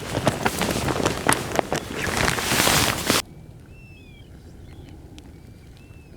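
Footsteps crunching over beach stones and seaweed, with a swell of wind noise. About three seconds in this gives way to a quiet stretch with several short, thin whistled calls of small shorebirds.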